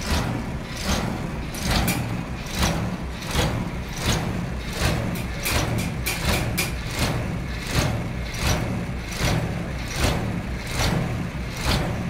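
Heavy sawmill engine running steadily, with a sharp clack repeating about every three quarters of a second and a flurry of extra clicks about halfway through.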